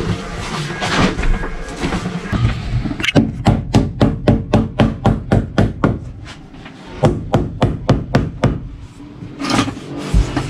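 PVC edge trim being tapped into the slot along a panel edge: a quick run of sharp knocks, about four or five a second, then after a short pause a second, shorter run of knocks.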